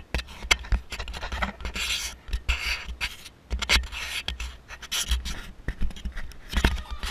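Handling noise on an action camera's microphone as the camera is moved: irregular scratching, rubbing and clicking over a low rumble, starting suddenly.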